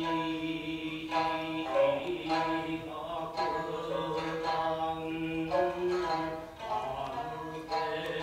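A chanter's drawn-out sung narration for Japanese puppet theatre, holding long notes, with a shamisen plucking now and then beneath it.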